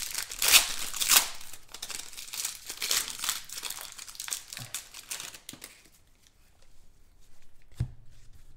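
Foil wrapper of a Panini Prestige football card pack being torn open and crumpled by hand. The crinkling is loudest in the first second or so and dies away about six seconds in. A single short thump comes near the end.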